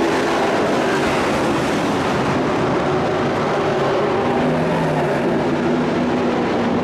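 Several dirt-track race trucks running at racing speed, a loud, continuous engine drone with overlapping engine notes. One note climbs in pitch about four to five seconds in.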